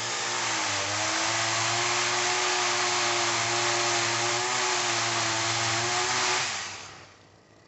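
Powered pole saw cutting a tree branch: a steady motor whine with a bright hiss, dipping slightly in pitch just after it starts, then running evenly until it stops after about six and a half seconds.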